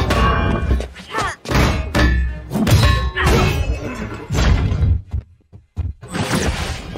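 Fight-scene sound effects: a string of heavy thuds and whacks as blows land, over dramatic score music. The sound drops almost to nothing for under a second about five seconds in, then picks up again.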